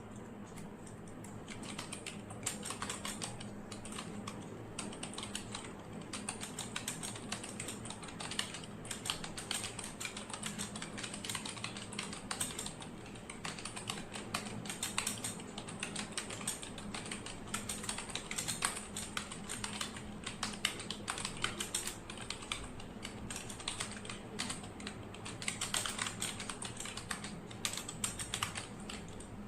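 Typing on a computer keyboard: fast, irregular key clicks in bursts, with short pauses between runs, over a faint steady hum.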